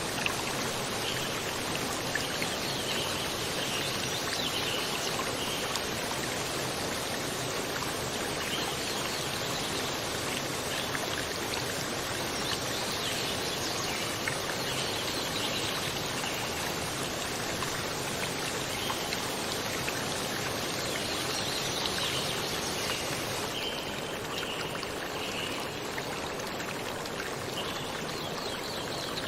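Flowing stream water, a steady even rush. About three-quarters of the way through it turns a little duller, losing some of its top hiss.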